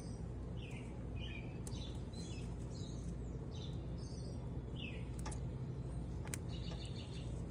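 Small birds chirping in short scattered calls over a steady low hum, with a few sharp clicks.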